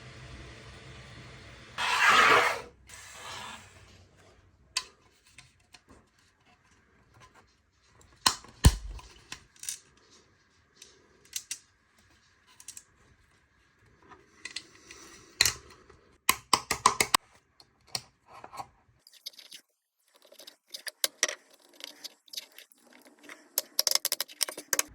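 Hands handling small hard plastic parts, with a loud scrape about two seconds in and then scattered sharp clicks, taps and short scrapes.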